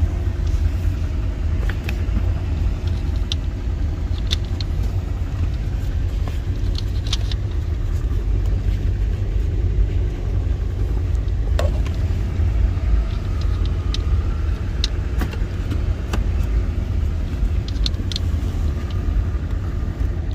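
A steady low rumble runs underneath, with scattered light clicks and taps of fuses and hand tools being handled in the car's fuse boxes.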